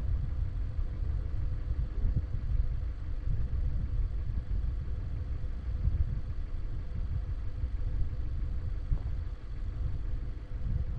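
Wind buffeting the microphone: an uneven low rumble that swells and dips throughout.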